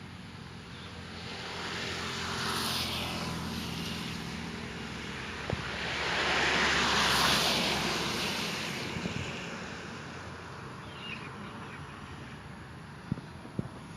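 A passing engine-driven vehicle: a low steady hum with a wash of noise that swells twice, loudest about seven seconds in, then fades away.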